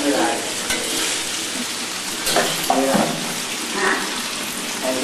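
Vegetables, mushrooms and meat sizzling as they are stir-fried in a hot wok, a steady hiss. A few short, louder sounds break in over it, just after the start and again near three seconds in.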